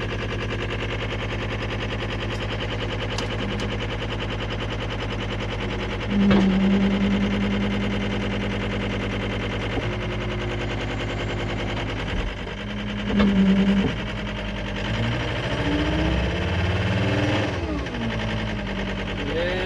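Compact track loader's diesel engine running rough and short of power, missing badly, which the owner guesses is a failed turbo. A louder steady drone comes in about six seconds in and again briefly around thirteen seconds, and the engine pitch swings up and down near the end.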